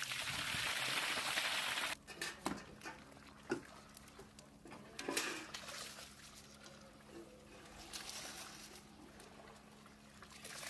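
Water poured out of a large metal basin onto a concrete floor, a loud rush lasting about two seconds that stops abruptly. Quieter scattered knocks and splashes follow, over a faint steady hum.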